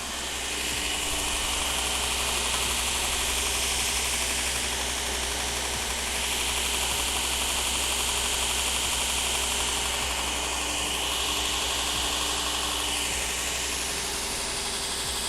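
A machine running steadily: a continuous hiss with a high whine that swells and fades a few times.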